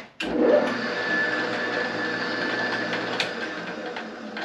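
A Shopsmith multipurpose woodworking machine's motor switched on and running steadily with a constant whine. It starts abruptly just after the start and cuts off at the end, dying away within about half a second.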